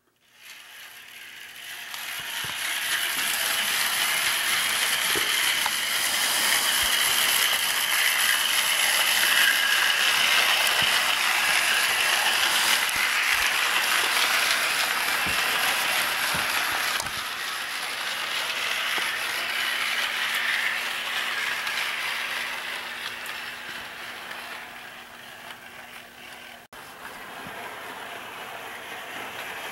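HO-scale model train running on the track: the locomotive's small electric motor and gearing whir with a steady hum while the wheels rattle over the rails. It grows louder over the first few seconds and fades after about twenty, then breaks off abruptly near the end, where a quieter running sound follows.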